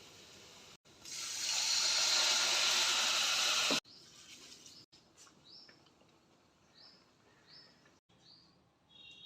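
Water pouring into a cooking vessel for about three seconds, its pitch rising as the vessel fills, then cut off suddenly. Faint bird chirps follow.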